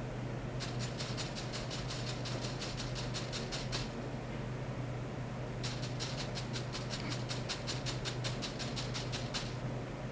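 Rapid, even ticking, about eight clicks a second, in two runs of about three seconds each, over a steady low hum. It comes from ultrasonic probes on metal wires driven by a function generator in pulse oscillation.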